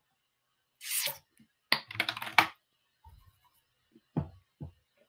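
Clicking at a computer desk: a short rush of noise about a second in, then a quick cluster of sharp clicks, and two soft low knocks near the end.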